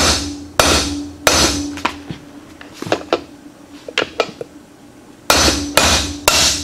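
Hammer blows on a steel bearing-race driver, seating a new inner pinion bearing race in a Chrysler 8¾-inch differential case. Each strike is sharp and metallic with a ringing tone after it: three hard blows in the first second and a half, a few lighter taps in the middle, then three more hard blows about half a second apart near the end, as the race is driven home.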